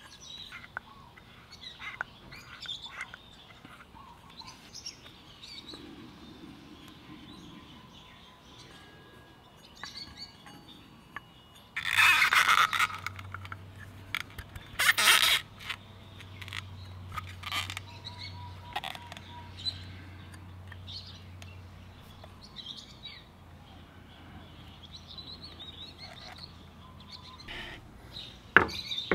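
Birds chirping in the background while a scooter's clutch and rear pulley assembly is handled and a drive belt is worked in between the pulley halves. Two loud bursts of rustling noise stand out, one about twelve seconds in and a shorter one about three seconds later.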